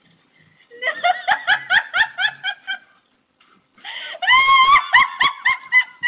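A woman laughing hard in rapid, high-pitched bursts, breaking into a long squeal about four seconds in, then laughing on.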